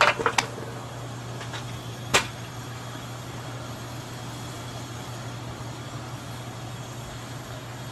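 A steady low hum, with a few sharp knocks right at the start and one more about two seconds in.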